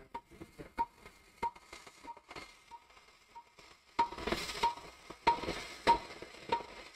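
Short, evenly spaced electronic beeps, about three every two seconds, like an operating-room patient monitor's pulse tone. From about four seconds in, louder clatter and rustling from handling in the endoscopy room joins them.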